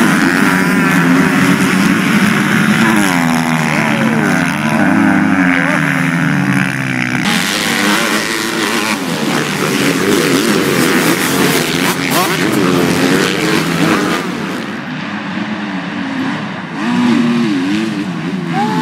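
Several MX2 motocross bikes running hard on a dirt track, their engines revving up and down in overlapping rising and falling pitches as they ride past. The sound changes abruptly about seven seconds in.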